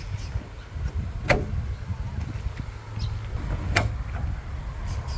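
Two sharp clicks, about two and a half seconds apart, over a steady low rumble.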